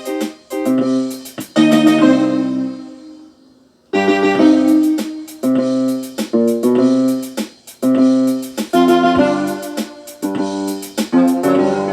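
Background music led by keyboard chords with sharp percussive hits; it dies away about three seconds in and starts again a second later.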